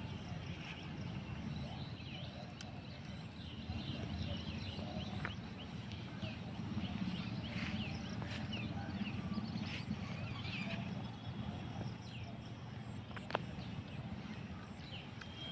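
Outdoor ambience: a steady low rumble with many short bird chirps scattered over it.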